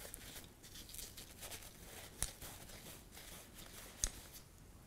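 Soft rustling and rubbing of a dry tissue being worked over the threaded metal connector of a vape clearomizer, with two small clicks, about two seconds in and near the end.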